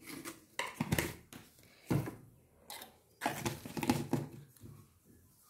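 Kitchen items being handled on a counter: a series of separate knocks and short rustling clatters, a few in the first two seconds and a longer cluster around three to four seconds in.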